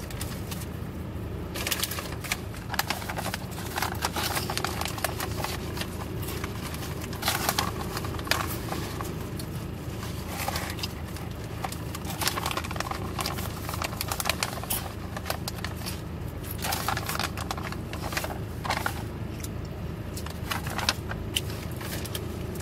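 Crinkling of a food wrapper and chewing, in irregular crackly bursts, over the steady low hum of a car.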